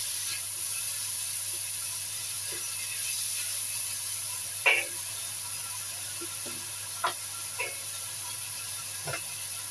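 Sliced bitter melon and beef sizzling in hot oil in a wok with a steady hiss while they wilt. A spatula knocks and scrapes against the wok a few times, loudest about halfway through.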